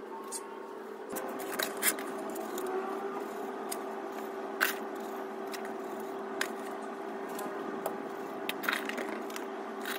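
A plate scooping sandy soil out of a metal bowl and tipping it out, with a few sharp scrapes and clicks scattered through. A steady hum with one held tone runs underneath.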